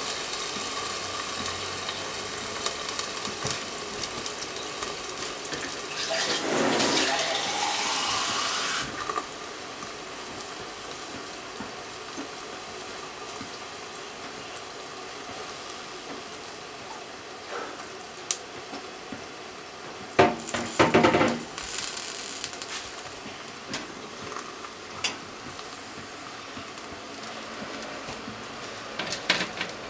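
Sausages and an egg frying under a glass lid in a pan on a gas burner: a steady sizzling hiss. There is a louder spell about six seconds in, and a burst of sharp knocks and clatter about twenty seconds in.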